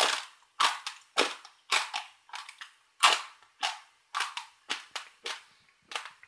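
Dry, uncooked pasta crunched between the teeth and chewed with the mouth open: a run of short, sharp crunches about twice a second.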